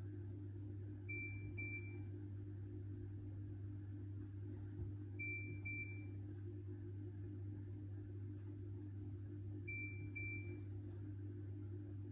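Hoover H-Wash 600 washing machine's electronic beeper sounding a double beep three times, about four and a half seconds apart, over a steady low hum.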